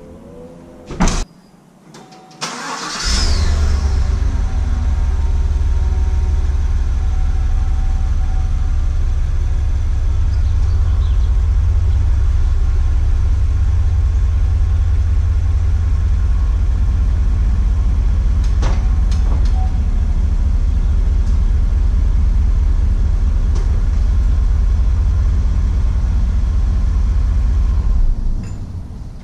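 A sharp thump about a second in, then the 2015 GMC Yukon's V8 engine starts about three seconds in and idles steadily with a deep, even rumble, falling away near the end.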